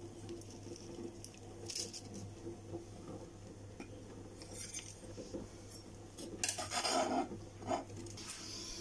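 A metal blade cutting through a crisp meringue-topped bake on a metal baking tray and lifting a slice onto a plate: short scrapes and clinks of metal on the tray and plate, the loudest cluster about seven seconds in.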